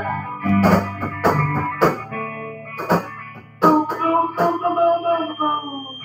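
Live band playing: electric guitar notes over low held notes, with a handful of sharp drum and cymbal hits, the music dying away near the end.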